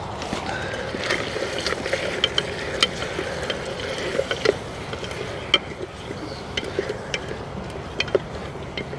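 Chicken sizzling in hot oil in a stainless-steel billy pot, with a spatula scraping and clicking against the pot at irregular intervals as it is stirred to brown.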